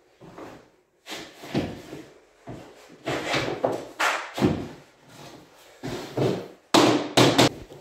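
Hammer knocking on a metal pull bar hooked over the end of a laminate plank at the wall, driving the end joint closed. About a dozen irregular knocks, roughly one to two a second, with wooden thuds from the floating floor.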